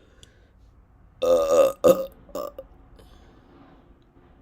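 A woman burping on purpose: one long, loud burp about a second in, quickly followed by a short burp and a third, quieter one.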